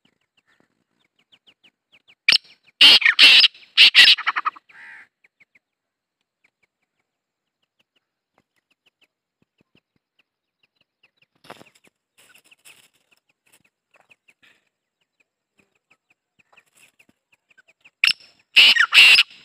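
Male black francolin calling: a loud phrase of several rough notes about two seconds in, then the same call again near the end. Between the calls there are only faint small ticks and chirps.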